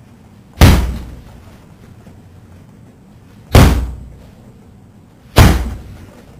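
Three loud bangs a few seconds apart, about half a second in, near three and a half seconds and near five and a half seconds. Each hits sharply and dies away over about half a second.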